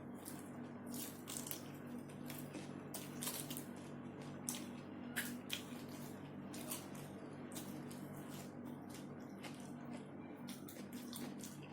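Close-up eating sounds: chewing and wet mouth clicks and smacks at an irregular pace, from someone eating shrimp with petai beans and rice, over a steady low hum.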